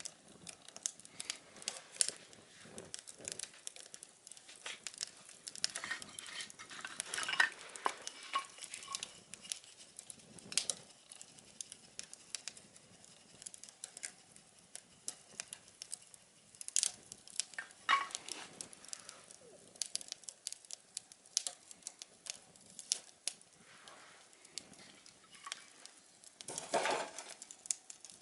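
Small wood fire in a homemade tin-can stove crackling, with sharp pops at irregular intervals.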